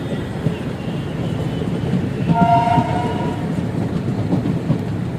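WDM3A ALCO diesel locomotive's horn sounding one short two-tone blast about two seconds in. Underneath is the steady running noise of the train, with clickety-clack of wheels over rail joints.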